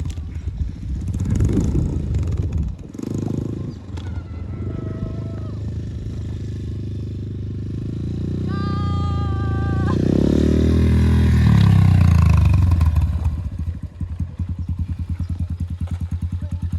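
A farm vehicle's engine running under way, building up to its loudest about ten seconds in and then settling into an even, rapid pulsing. A steady tone lasting about a second and a half sounds partway through.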